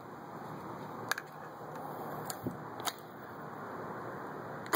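Quiet steady background hiss with three or four faint, sharp clicks spread through it.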